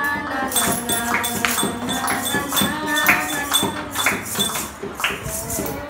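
Students singing a pop song in a group, accompanied by improvised percussion: a tin can and other hand-held objects shaken and tapped in a steady beat about twice a second.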